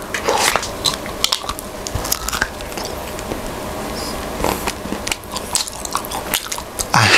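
Close-miked biting and chewing of a large chocolate bar studded with nuts: irregular crunches and wet mouth clicks as the chocolate and nuts are chewed. A short louder vocal sound comes right at the end.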